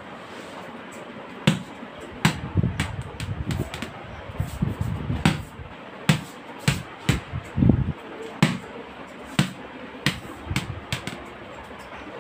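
Small plastic football bouncing and knocking on a hard floor: a string of hollow, irregularly spaced thuds, busiest in the middle of the stretch.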